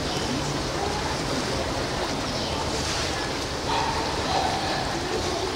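Steady rushing background noise with faint, indistinct voices that come up a little just before four seconds in.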